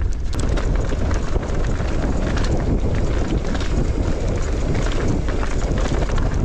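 Wind buffeting the microphone in a steady rumble, over the rattle and crunch of mountain-bike tyres rolling down a loose, rocky track.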